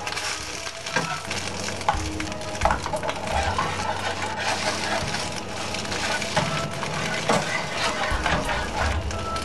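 Eggs sizzling in a frying pan while a spatula stirs and scrapes them, with frequent short clicks of the spatula against the pan.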